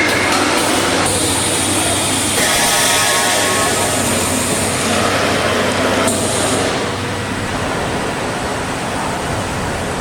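Steady, loud machine noise with a hiss from a reinforcing-mesh welding line running. The sound changes abruptly several times.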